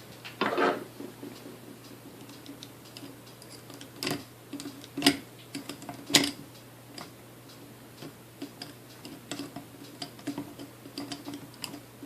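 Irregular light clicks and taps, with a few sharper knocks about four, five and six seconds in, from small metal parts of a mixer's gear housing being handled during reassembly.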